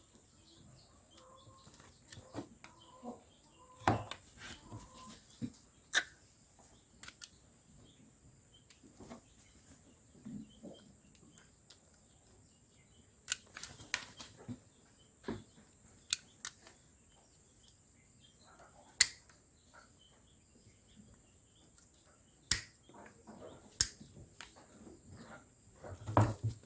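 Hoof-trimming shears snipping a sheep's hooves: sharp single clicks at irregular intervals, a few seconds apart, with shuffling in between.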